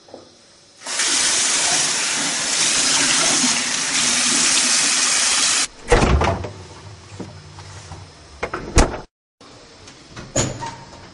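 Single-lever mixer tap turned on, water running steadily into a bathroom basin for about five seconds, then cutting off suddenly. After it come a thump, a few sharp clicks, and another clack near the end.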